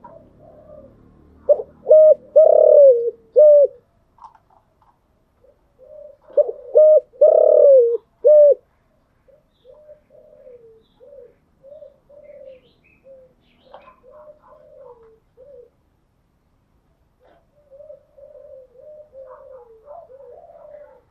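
Spotted doves cooing: a near bird gives two loud multi-note coo phrases, each about two seconds long, in the first half, while fainter doves keep cooing in the background.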